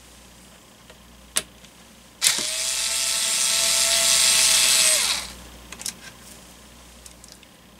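Cordless power driver spinning for about three seconds as it backs out one of the screws that hold the fan motor's shell together; its motor whine starts abruptly, holds a steady pitch and then stops. A sharp click comes just before it, and a few light clicks and taps follow.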